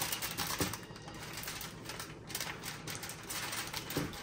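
Aluminium foil crinkling and crackling in irregular clicks as it is pulled from the roll, torn and pressed over a baking pan.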